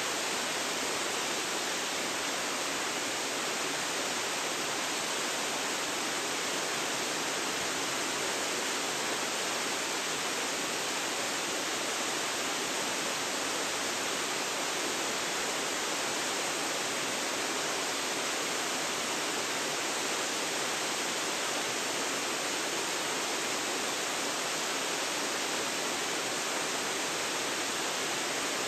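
Waterfall rushing in a steady, unchanging hiss of falling water, with little low rumble.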